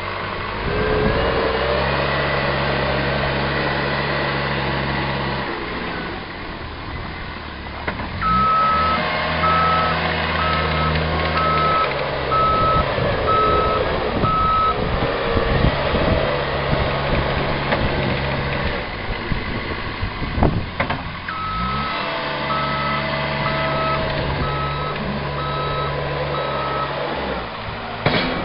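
Caterpillar 257B skid-steer loader's diesel engine running with its drive whining and the engine note rising and falling as it works. Twice its reverse alarm beeps at an even pace for about six seconds while it backs up, and there is a single sharp knock between the two.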